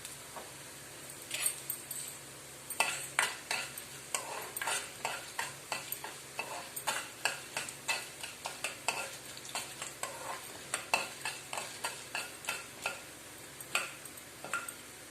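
Mustard seeds and urad dal frying in sesame oil in a pan, stirred with a spoon: a run of irregular clicks and taps, several a second, over a faint sizzle, starting about a second in.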